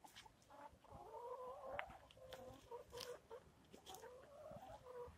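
Hens making faint, drawn-out, wavering calls, several in a row and overlapping, with a few short clicks mixed in.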